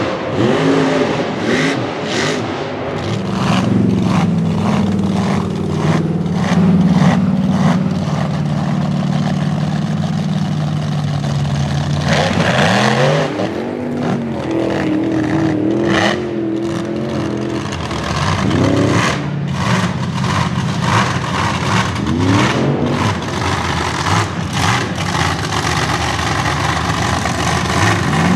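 Supercharged engine of a 1950s Dodge mega truck revving hard through a mud bog, its pitch climbing and falling again and again with the throttle, with a sharp climb about halfway through. Short crackles and spatters run through it.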